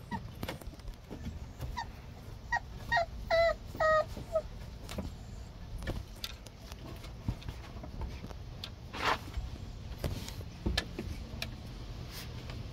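Pit bull puppies at play: a puppy gives a quick run of about six short, high whines about two to four seconds in. Scattered clicks and scuffs of paws and claws on wooden boards run throughout.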